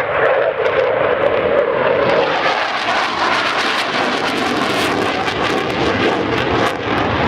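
Saab JAS 39C Gripen fighter's single Volvo RM12 turbofan running loud during a display pass. The noise turns harsher and crackles from about two seconds in.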